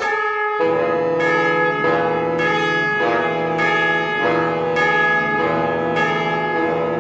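Bells struck in a steady, even rhythm, a stroke a little under twice a second, the pitched tones ringing on and overlapping into a sustained chime.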